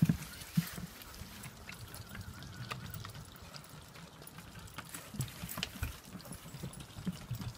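Footsteps of a walker and two dogs on the boards of a wooden footbridge: irregular thuds and a few sharp clicks, over water trickling below.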